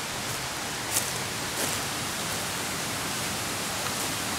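Steady rush of a brook's running water, with two brief sharp sounds about one and one and a half seconds in.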